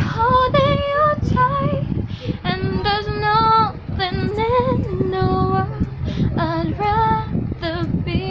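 A young woman singing a slow, held-note melody with her mouth full of marshmallows, about seven of them, so no words come through clearly; the sung phrases break off around two, four and six seconds in.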